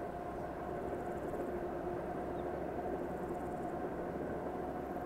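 Diesel locomotive running steadily: a constant engine drone with a low rumble and a steady hum.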